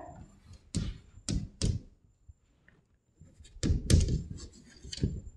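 A series of short, sharp taps and knocks: three spaced ones in the first two seconds, then after a quiet pause of about a second a quicker cluster of them.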